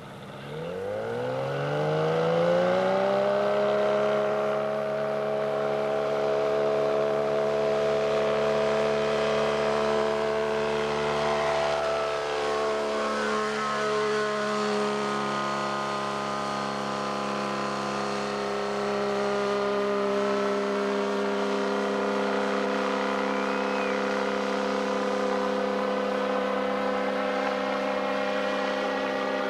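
Engine of a motorized hang-glider trike on floats opened up to full throttle for a takeoff from water: the pitch climbs steeply over about two seconds, then holds as a steady high drone while it lifts off and climbs away. There is a brief wavering in the tone about halfway through.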